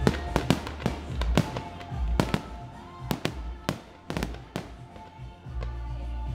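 Fireworks display: aerial shells bursting in a rapid, irregular series of sharp bangs, often several a second, with music playing underneath.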